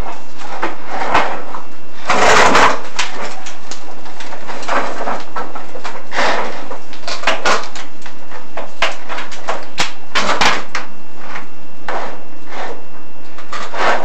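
Irregular scraping and rubbing noises, a run of short swishes with a larger scrape about two seconds in and again around ten seconds, as a chimney inspection camera is lowered down a furnace flue.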